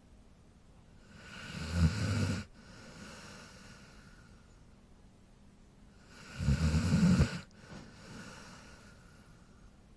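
Dog snoring: two low snores about five seconds apart. Each builds up and then cuts off sharply, followed by a softer breath.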